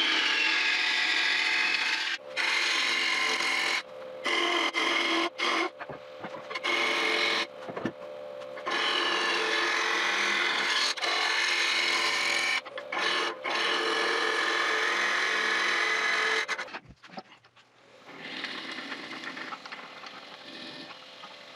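Gouge cutting oak on a spinning wood lathe: a steady shearing hiss over the lathe's hum, in long passes broken by short breaks as the tool is lifted off. About two-thirds of the way through the cutting stops and a quieter, steady sound remains.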